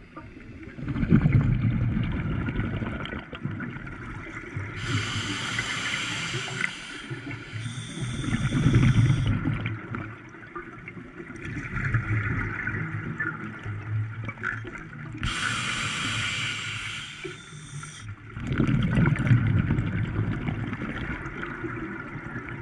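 A scuba diver breathing underwater through a regulator: gurgling, bubbling exhalations alternate with a hissing inhalation, heard twice, each lasting about two and a half seconds.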